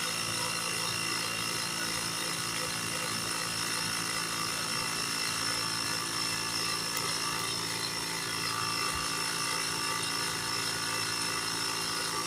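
Small portable air compressor running steadily, inflating a freshly remounted car tire.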